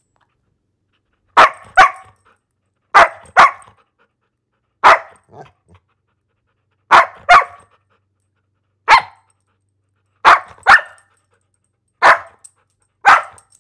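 A dog barking: about a dozen short, sharp barks, many in quick pairs, with dead silence between them, the first coming about a second and a half in.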